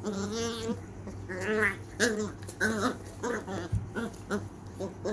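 Beagle puppies vocalizing in play as they tussle: one longer wavering cry, then a run of short, sharp yaps and whines.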